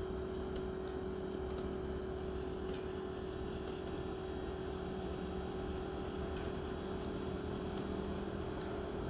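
Heat pump outdoor unit running steadily in heating mode just after a defrost cycle: a constant hum over a low rumble, with a few faint scattered ticks.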